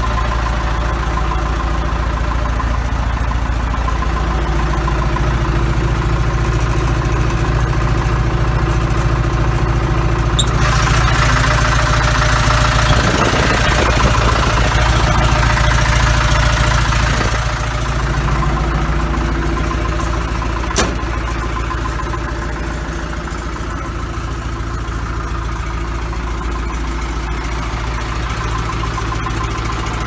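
The backhoe's John Deere 4045D four-cylinder diesel engine idling steadily. From about ten to eighteen seconds in a louder airy rush joins it, and a single sharp click comes about twenty-one seconds in.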